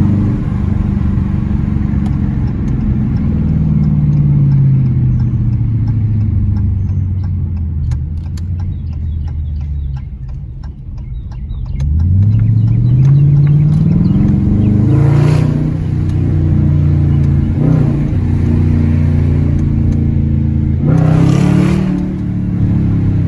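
2020 Dodge Challenger R/T's 5.7-litre HEMI V8 with its mid muffler deleted, running loud. The exhaust note falls as the car slows for the first ten seconds or so, then climbs sharply as it accelerates about twelve seconds in and settles into a steady pull, with two short harsher bursts later on.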